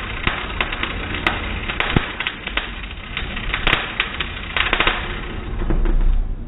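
Arc welding crackling: a dense hiss broken by many irregular sharp pops of spatter.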